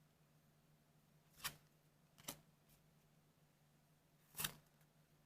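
Trading cards being handled: three short, crisp card sounds, about one and a half seconds in, just after two seconds and a slightly longer one near the end, over a faint steady hum.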